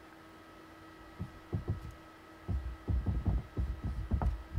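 Felt-tip marker writing on a whiteboard: a run of short low taps and scrapes, one per pen stroke, starting about a second in and coming thick and fast from about halfway. A faint steady electrical hum lies underneath.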